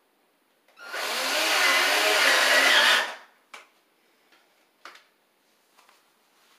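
Cordless drill driving a screw into the wooden top plate for about two seconds, its motor whine wavering under load, then stopping abruptly. A few faint clicks follow.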